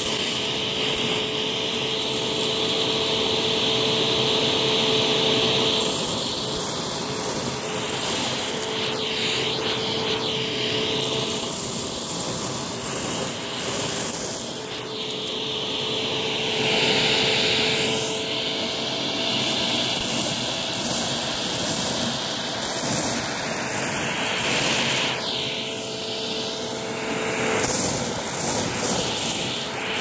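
Shark Rotator Powered Lift-Away upright vacuum running with a steady motor whine while its nozzle sucks up crushed, stale tostada shell pieces from carpet. The rush of air rises and falls in pitch as the nozzle moves into and out of the pile.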